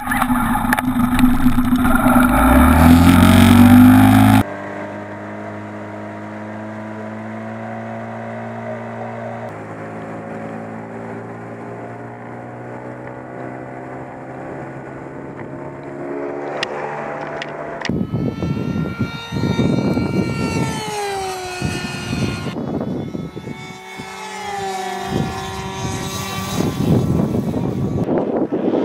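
Small outboard motor on an inflatable boat pull-started, catching and revving up, then running steadily. In the last ten seconds a propeller stunt plane's engine is heard overhead, its note falling twice.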